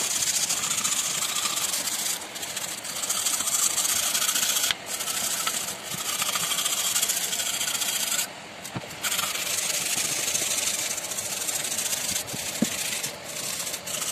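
A hand wire brush scrubbing rust off the corroded metal casing of a submersible pump motor: a steady, hissy scrape with a few short breaks, the longest about two-thirds of the way through.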